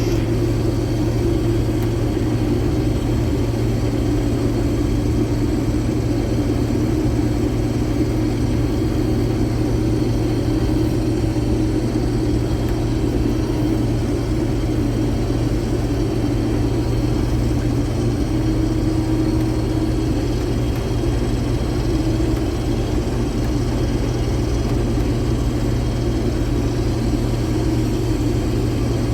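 Combine harvester running with a steady low drone.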